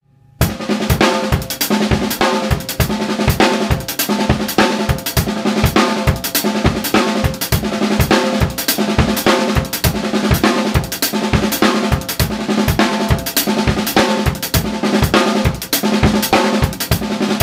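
Drum kit played as a groove built on the six-stroke roll rudiment: a dense, steady run of snare, bass drum and tom strokes with Meinl Byzance cymbals. The playing starts about half a second in, after a brief silence.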